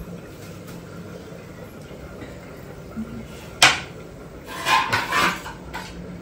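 Steel dishes being handled: one sharp clank a little past halfway, then about a second of clinking and scraping, over a low steady hum.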